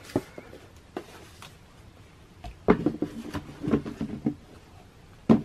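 Sneakers being handled in their cardboard shoebox: a few separate knocks, a busier stretch of bumping and handling in the middle, and one sharp knock near the end.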